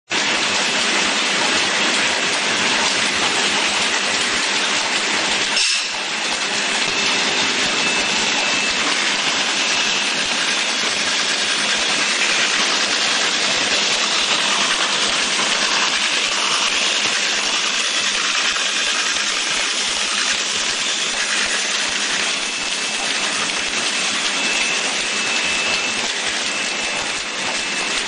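Straw packing machine running steadily at high speed as it wraps single straws in BOPP film: a dense, even mechanical noise with a faint high steady whine.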